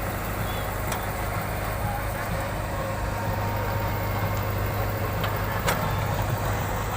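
Steady outdoor motor-vehicle noise with a constant low engine hum, and a couple of short sharp clicks.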